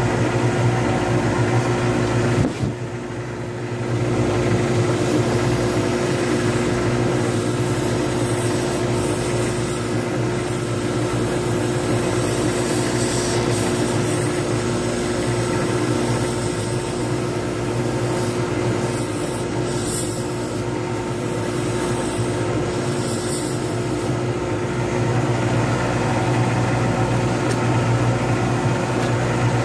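Lathe motor running steadily with a hum, while a hand-held turning tool cuts a spinning poured-resin blank, a scraping hiss that comes and goes. The cutting drops away briefly about three seconds in.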